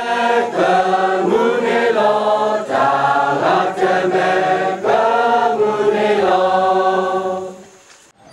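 A group of villagers singing a prayer chant together in long held phrases, fading out near the end.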